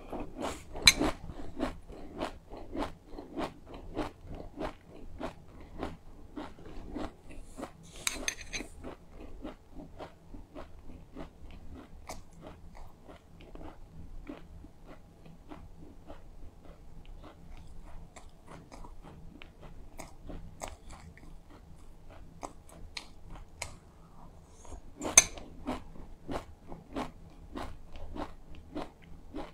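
Close-up chewing of a mouthful of hulled white sesame seeds: a steady run of short, sharp crunches, about two or three a second. The loudest bites come about a second in and again late on.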